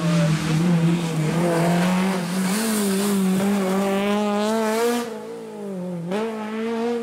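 Rally car engine held at high revs through a corner, its pitch climbing slowly, then about five seconds in the sound drops and a second rally car's engine comes in, revving up as it approaches.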